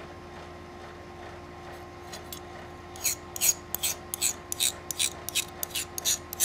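Hardness test file (Tsubosan HRC65) scraped in quick strokes across the edge of a freshly quenched Damascus san-mai knife blade, testing whether the steel has hardened. The strokes start about three seconds in and come about five a second.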